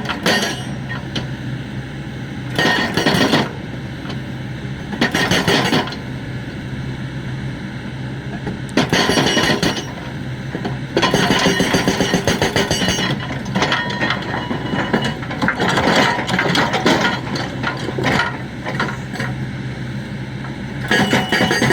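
Hydraulic breaker on a Kobelco excavator hammering in repeated bursts of rapid blows, each lasting a second or two, over the steady running of the excavator's engine.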